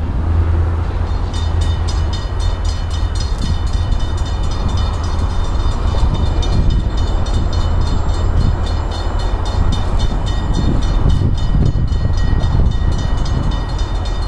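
Railroad grade-crossing bell ringing rapidly and steadily, starting about a second in, over a steady low rumble.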